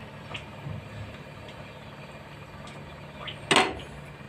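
Kitchen background with a steady low hum and a few faint clicks, then one short, loud clatter about three and a half seconds in.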